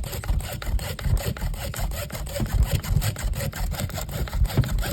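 A baseball being sawn through by hand, with rapid, even back-and-forth cutting strokes.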